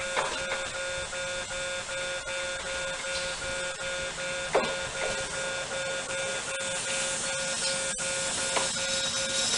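Japanese railway level-crossing warning bell ringing, a steady repeating pattern of bell tones. Three brief falling squeaks cut through it, about a quarter-second in, around the middle, and near the end.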